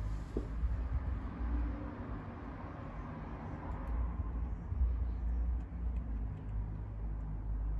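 Steady low rumble of background noise, with a few faint clicks from hand work fitting the inner snap ring into a locking hub.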